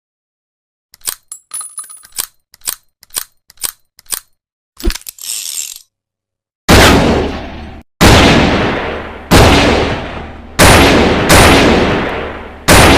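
.357 Magnum revolver sound effect: a run of light metallic clicks and a clink of the gun being handled, then six loud shots about a second and a half apart, each with a long echoing tail.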